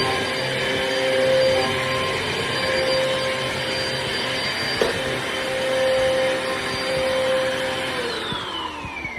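Amazon Basics upright bagless vacuum cleaner running steadily with a motor whine, with a brief knock about halfway. Near the end the motor shuts off and winds down, the whine falling in pitch.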